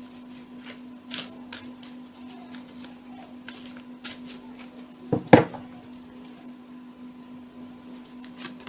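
A deck of tarot cards being shuffled by hand: soft, irregular card flicks and rustles, with a louder double knock about five seconds in. A steady low hum runs underneath.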